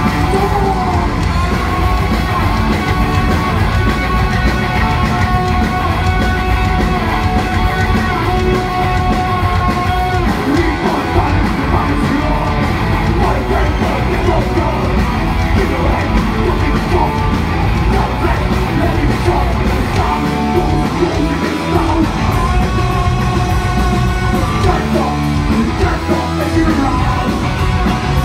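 A live punk rock band playing loud, with distorted electric guitars, bass and drums under shouted singing.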